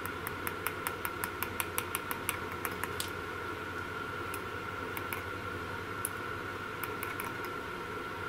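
Small metallic clicks as alligator clips are handled and clipped onto a car battery terminal: a quick run of about four clicks a second for roughly three seconds, then a few scattered clicks, over a faint steady high tone.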